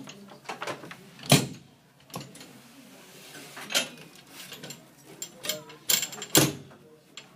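Plastic folding table with a metal frame being picked up and handled: a sharp knock about a second in, then a few more knocks and rattles near four and six seconds as it is tilted up onto its edge.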